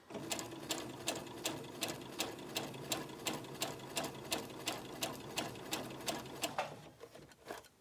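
Electric domestic sewing machine with a zipper foot stitching a seam slowly down the centre of a zipper. The motor hums under an even ticking of needle strokes, about three to four a second, and stops a little before the end, followed by a couple of single clicks.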